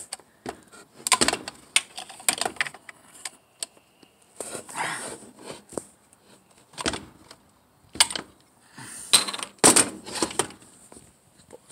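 Irregular clicks and knocks of plastic and metal with a short scrape about five seconds in: a Stihl MS 170 chainsaw's bar-oil filler cap being worked loose and removed with a metal tool, the saw's housing shifted on the table.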